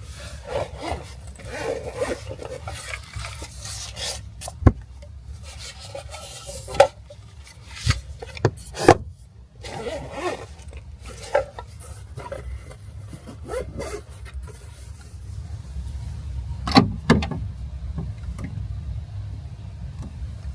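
Rubbing and rustling of things being handled, with several sharp knocks and clacks, over a steady low rumble.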